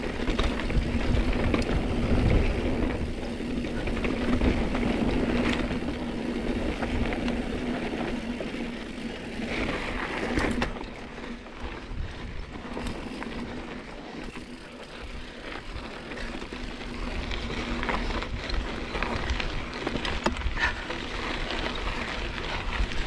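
Mountain bike being ridden along a dirt trail: tyre and drivetrain noise with scattered rattles and clicks, and wind rumbling on the microphone. A steady hum sounds through the first half and then fades.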